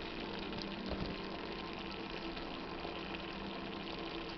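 Ground chicken in buffalo sauce simmering in a pot: a steady bubbling hiss over a low hum, with one light tap about a second in.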